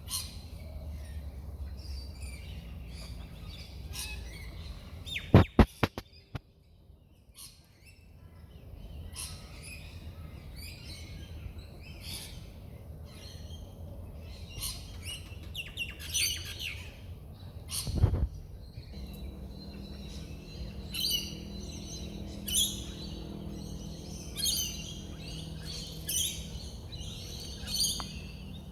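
Small birds chirping and tweeting in short, repeated calls. A few loud, sharp knocks come about five seconds in, followed by a brief quiet gap, and there is a single thump at about eighteen seconds.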